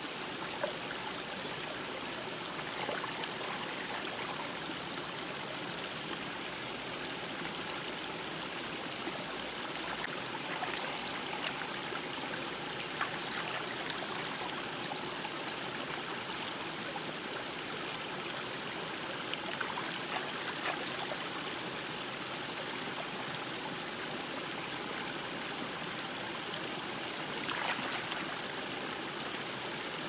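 A shallow stream flows over rocks with a steady rush of water. A few brief splashes and clicks come from hands working eggs and vegetables in the water, the sharpest near the end.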